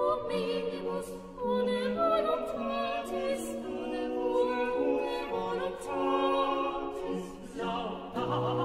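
Baroque sacred choral music: several voices singing together in parts, holding and moving between notes.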